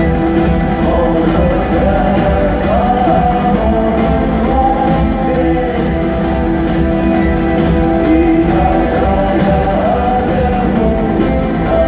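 Live rock band music: guitars and drums playing under a sung melody, loud and steady.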